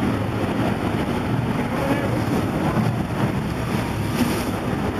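Steady rush of water flowing down water slides, with wind buffeting the microphone. Near the end comes a splash as a rider hits the run-out lane.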